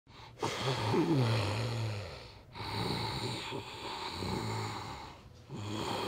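A woman snoring in her sleep: long, low snores of about two to three seconds each, one after another.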